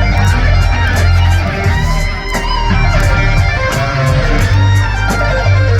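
Live band music: electric guitar playing over bass and a steady drum beat, with no vocals.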